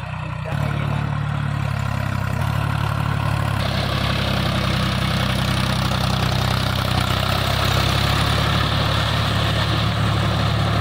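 Mahindra 275 Bhoomiputra tractor's three-cylinder diesel engine running steadily as it works a cultivator through wet mud on iron cage wheels. The engine gets louder about half a second in and harsher from about four seconds in.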